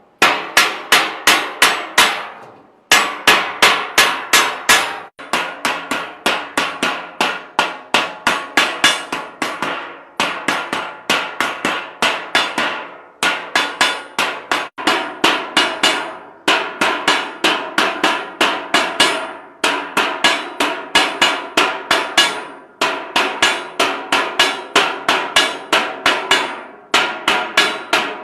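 Hammer beating in fast, even blows, about five or six a second, in runs of two to three seconds with brief pauses between them.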